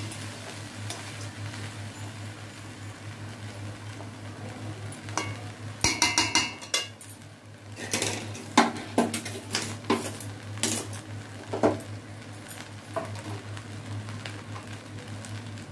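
Metal spatula scraping and clinking against a metal kadai as rice is stirred and fried dry, with the loudest clatters in the middle, over a steady low hum.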